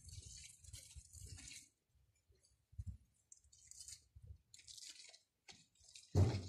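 A cat's front paws scratching and scraping in loose, dry tilled soil, digging a hole in short irregular bouts with pauses between. A louder rush of noise comes in near the end.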